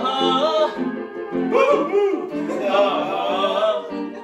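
Man singing without words, sliding and wavering through held notes, over chords repeated about twice a second on a Casio electronic keyboard.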